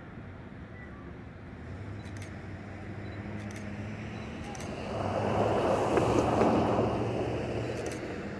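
Vehicle noise: a low steady engine hum, with a rushing swell that builds about five seconds in, peaks a second or two later and fades near the end.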